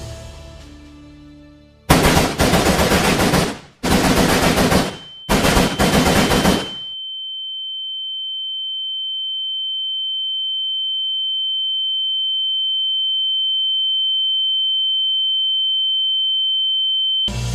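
Three bursts of rapid automatic gunfire over about five seconds, then a single steady high-pitched tone, a film's ear-ringing effect after the shots, slowly growing louder and cutting off suddenly near the end.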